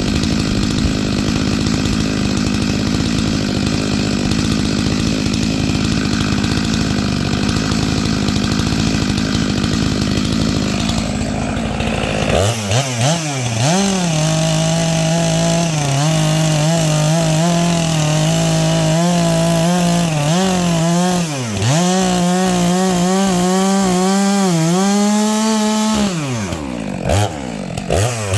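Stihl MS 462 two-stroke chainsaw with a 25-inch bar and ripping chain running at high revs, rip-cutting firewood along the grain. About twelve seconds in, the dense rough cutting noise gives way to a cleaner, steady engine note that dips briefly several times as the load or throttle changes.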